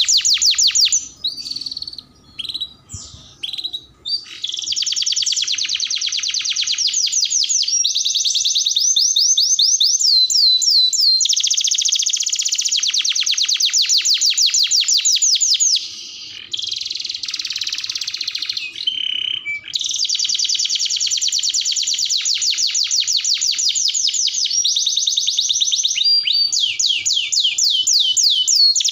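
Domestic canary singing a long, high-pitched song of fast repeated-note trills, one trill running straight into the next. About a second in the song breaks into a few scattered short notes before the trills resume, and around the middle there is a rougher, quieter passage.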